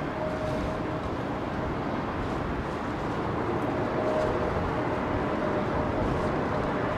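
Steady rushing of strong wind, with the drone of an airliner's jet engines on approach and a faint steady whine running through it at times.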